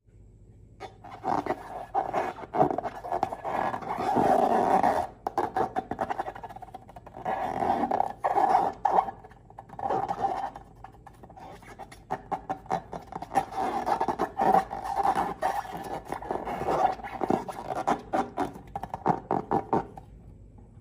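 Slime being squeezed and kneaded by hand, making a dense run of wet squelches, clicks and crackles that swell and fade unevenly.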